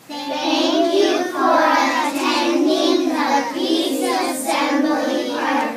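A group of young children singing together in unison, one steady, sustained melody.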